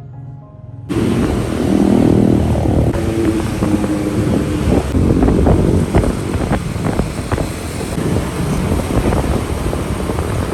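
Loud traffic noise, with wind rumbling on the microphone and scattered knocks, starting suddenly about a second in as a soft piano tune cuts off.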